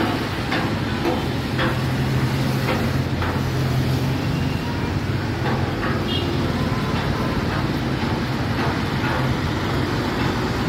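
Steady highway traffic: the engines of motorcycles, cars, autorickshaws and buses running and tyres on the road, making a continuous hum. A few short sharp sounds stand out now and then.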